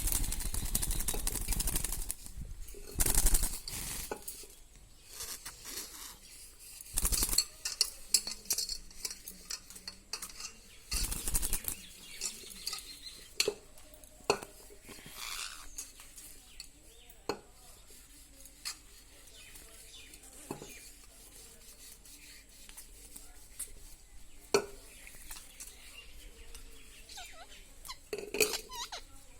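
A pet parrot in a water dish: several short bursts of splashing and fluttering, with many scattered clicks and clinks against the dish.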